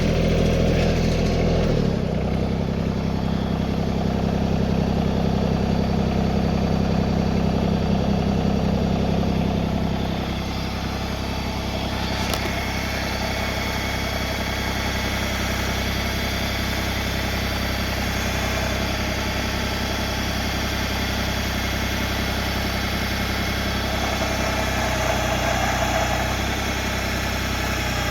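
Tractor engine running, louder and working harder for the first ten seconds or so, then settling to a steady, quieter run as the tractor is backed into the backhoe hookup.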